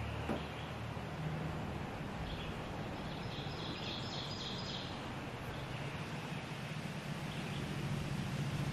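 Woodland ambience: a steady background hiss with faint bird calls about two to five seconds in.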